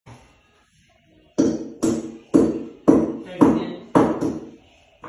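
Background music: a run of sharp, ringing beats about two a second, starting about a second and a half in.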